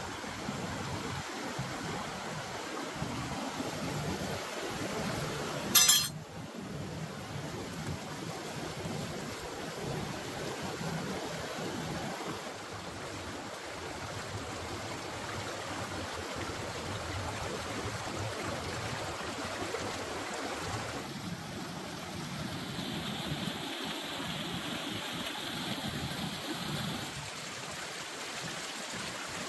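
Shallow, rocky stream rushing over stones in a steady watery rush, with one sharp click about six seconds in.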